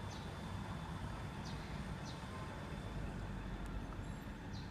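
Steady low outdoor background rumble with a few faint, short high chirps scattered through it.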